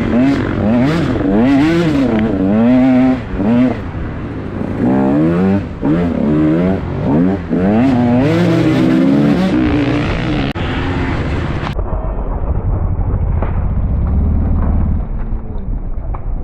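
KTM 150 two-stroke dirt bike engine revving up and down over and over as it is ridden hard, the pitch climbing and dropping every second or so. About twelve seconds in the sound turns suddenly muffled, leaving a dull low rumble.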